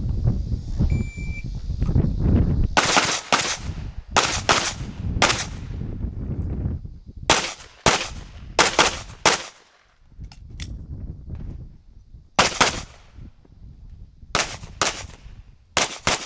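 Pistol shots fired in quick pairs and short strings, with gaps of a second or more between strings, each shot followed by a short echo. A low rumble fills the first few seconds before the first shot.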